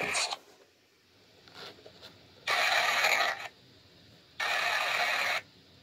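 Static-like hiss that cuts in and out abruptly in three bursts of about a second each, with near silence between them.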